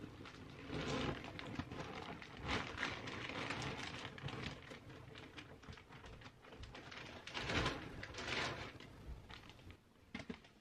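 Fabric clothes storage organizers with clear plastic panels being lifted, carried and set down, rustling and crinkling in irregular bursts with soft bumps.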